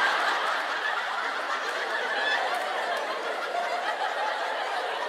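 Audience laughing, a broad wave of many people that slowly dies down.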